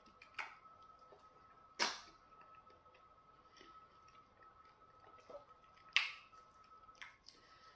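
Close-miked eating sounds of pounded yam and okra soup being eaten by hand: four sharp wet smacks and clicks, the loudest about two seconds and six seconds in, over a faint steady high-pitched whine.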